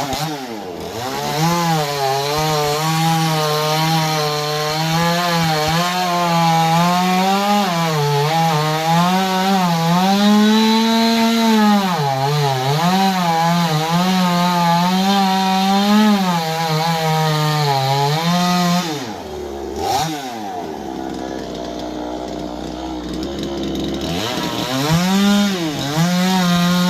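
Two-stroke chainsaw running at high revs and cutting wood, its note sagging and recovering as the chain bites. About two-thirds through it falls back to a lower, slower note, then revs up again near the end.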